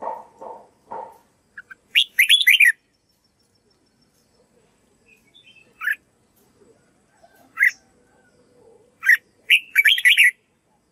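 Red-whiskered bulbul singing short, bright whistled phrases: one burst about two seconds in, single notes about six and seven and a half seconds in, and a longer run of phrases near the end, with pauses between. In the first second a lower-pitched call repeats a few times.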